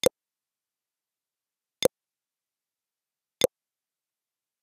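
Three computer mouse-click sound effects, one each as the animated cursor clicks the Subscribe button, the like button and the notification bell, spaced a little under two seconds apart.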